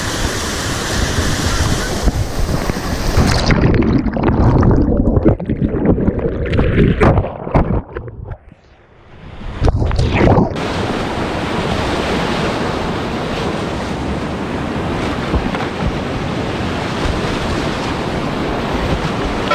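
Rushing whitewater of a steep creek rapid. About three seconds in the sound turns dull and low, with scattered knocks and a brief near-drop-out. At about ten seconds the full bright rush of the rapid returns and holds steady.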